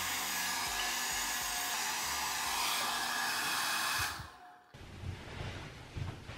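Handheld hair dryer blowing steadily, then cutting off abruptly about four seconds in. Afterwards come quieter rustling and a few soft low thumps as pillows are handled on a bed.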